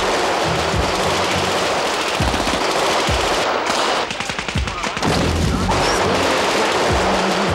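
Sustained rapid automatic gunfire, the shots running together into a dense continuous rattle that thins briefly about four seconds in.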